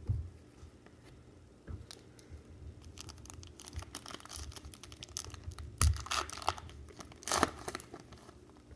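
A trading-card pack wrapper torn open and crinkled by hand, in several short crackly bursts among scattered small clicks and rustles.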